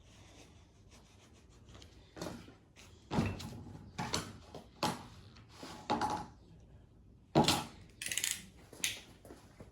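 Knocks, scrapes and rubbing as a freshly laid-up fiberglass seat base is worked apart by hand: about half a dozen separate knocks, the loudest about seven and a half seconds in, followed by a brief hissing rasp.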